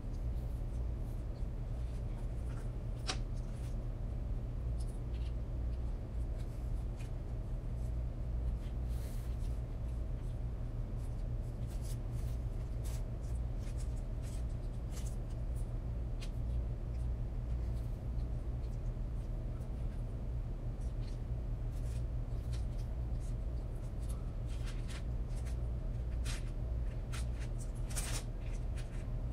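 Scattered light scratching, rubbing and clicking as a pastry brush and then a fork press and scrape on pastry dough over parchment paper, crimping the edges, over a steady low hum.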